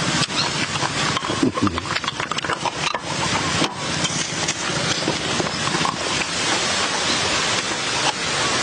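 Close-miked eating sounds: crunchy chewing of spicy papaya salad, dense with small crackles and clicks, with a metal pick scraping inside a snail shell as the meat is worked out.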